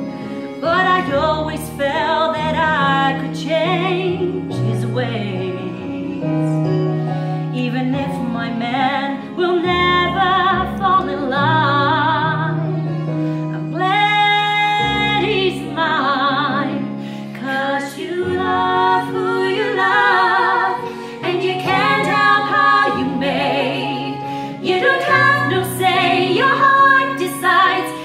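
Two women singing a musical-theatre duet in full voice, taking phrases in turn and together, over piano accompaniment.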